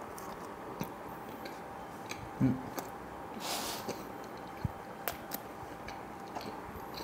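Close-miked chewing of a mouthful of Domino's cheese burst pizza: soft wet clicks and smacks of the mouth, a brief hummed "mm" about two and a half seconds in and a short breath through the nose a second later, over a steady background hum.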